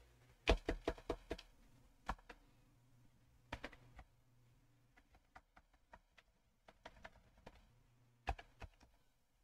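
Computer keyboard typing in irregular bursts: a quick run of keystrokes about half a second in, a few more around two seconds and three and a half seconds, lighter scattered taps after that, and two stronger keystrokes near the end.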